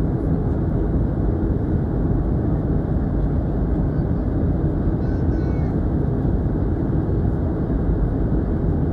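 Steady jet airliner cabin noise in flight, heard inside the cabin: an even, deep rush of engine and airflow noise.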